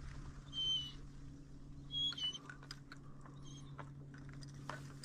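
A few short, high whistled calls, each a brief slightly falling note, two of them close together about two seconds in, over faint rustling clicks and a low steady hum.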